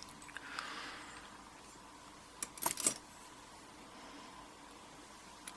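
Small lock parts (pin-tumbler pins and springs from a padlock core) being handled: a soft rustle, then a quick cluster of light metallic clicks about two and a half seconds in.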